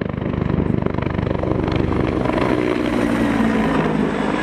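Helicopter running, its rotor beating in a fast, even pulse, with a steady engine tone coming in about halfway through.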